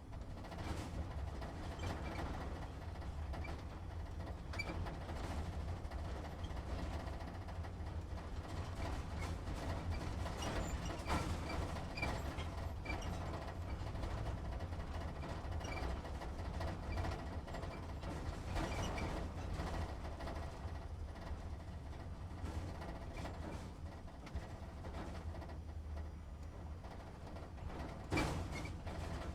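Truck engine running low and steady, heard from inside the cab, with small creaks and rattles from the cab throughout and a sharper knock near the end.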